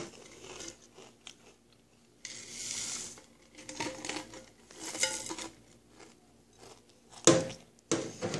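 Pringles cheddar cheese potato crisps being crunched and chewed, with scattered crunching and rustling sounds. Two sharp, louder sounds come near the end.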